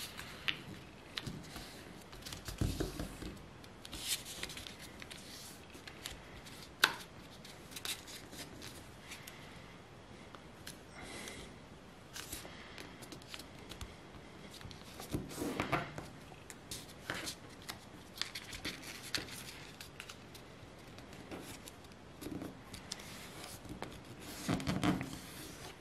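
A square of white paper being folded by hand into an origami crane base: rustling, crinkling and crisp crease sounds as the paper is pressed and flattened, with louder bursts of handling a few times.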